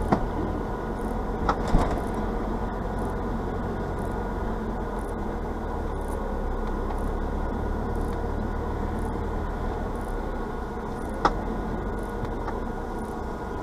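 Steady low rumble of a vehicle's engine and tyres heard from inside the cabin at slow driving speed, with a couple of sharp knocks in the first two seconds and one more near the end.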